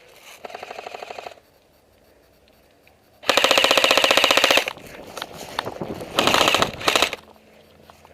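Airsoft electric rifles firing full-auto bursts, each a rapid rattle of shots. A fainter burst comes about half a second in. A long, loud burst follows about three seconds in, and another loud one at about six seconds.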